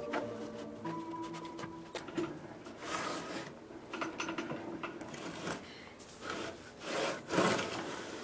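A plywood crosscut sled being pushed back and forth over a cast-iron table saw top, its wooden runners rubbing in the miter slots: a run of uneven swishing rubs, the loudest near the end. The saw is not running.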